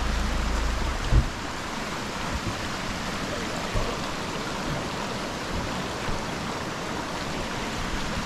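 Shallow stream running over stones and gravel, a steady rushing babble. A low rumble in the first second ends in a sharp thump, the loudest moment, and a few softer knocks follow.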